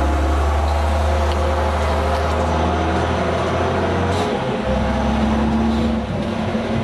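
Leyland Olympian double-decker bus's diesel engine running with a deep steady drone. A little past four seconds in, a gear change: a short hiss as the drone breaks off briefly and comes back weaker. This is the 'sneezing' gear change the bus is known for.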